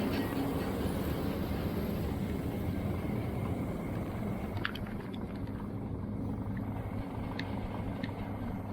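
Tractor engine running steadily, with a low, even drone and a few faint clicks partway through.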